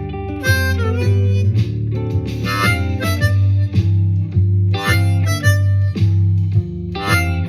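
Blues harmonica, a diatonic harp in C played in second position in G, playing licks over a blues backing track with guitar and a steady bass line.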